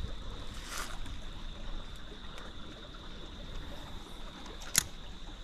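Shallow creek trickling over rocks. A light swish about a second in as a spinning rod is cast, and a single sharp click from the spinning reel near the end.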